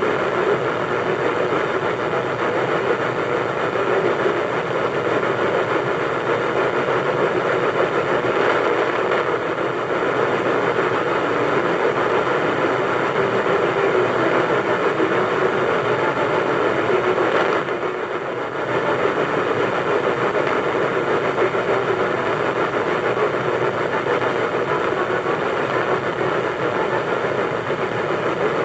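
AM radio static from a Sony boombox tuned to 1450 kHz: a steady, loud hiss and crackle from distant lightning, dipping briefly about two-thirds of the way through as the signal fades.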